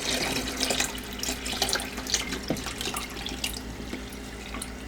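Water poured from a coffee pot into the back water reservoir of a drip coffee maker, splashing steadily and tailing off toward the end.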